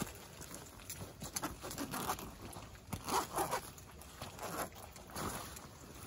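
Tent door zipper pulled open in several short, uneven tugs, with the tent fabric rustling as the door flap is pushed apart.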